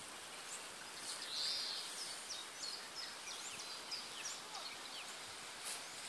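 Small birds singing: a rapid scatter of short, high, downward-slurred notes over a steady background hiss.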